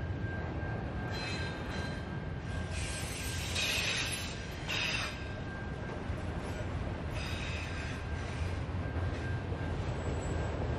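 Freight train's autorack cars rolling past at close range: a steady low rumble of steel wheels on rail, with bursts of high-pitched wheel squeal, loudest about four seconds in.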